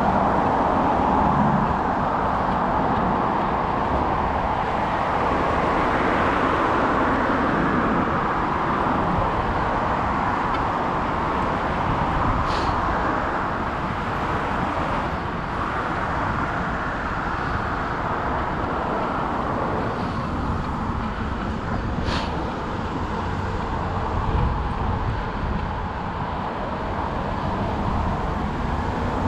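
Steady road traffic noise from cars passing on the street alongside a moving bicycle, with two brief sharp clicks about twelve and twenty-two seconds in.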